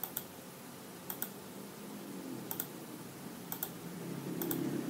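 Clicking at a computer: five pairs of short, sharp clicks, one pair about every second.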